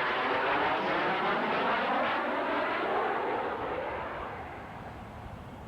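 An airplane flying past, a loud rushing engine noise whose pitch bends as it goes by, then fading away over the last couple of seconds.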